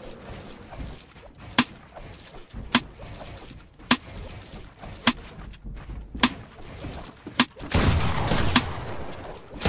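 Sparse intro of a rap beat: a sharp percussive hit about every second over a low hiss, with a louder, fuller noisy swell coming in about eight seconds in.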